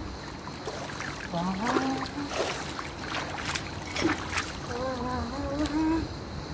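Water splashing and dripping as a swimmer climbs out of a pool up a ladder, with a handful of sharp splashes through the middle as the legs come out of the water.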